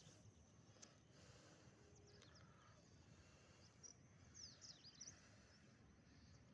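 Near silence: faint outdoor ambience with a low rumble, and a few faint, quick high chirps about two-thirds of the way through, likely small birds.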